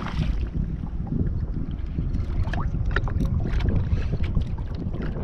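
Wind buffeting the microphone in a steady low rumble over a kayak on choppy water, with scattered small clicks and splashes through it.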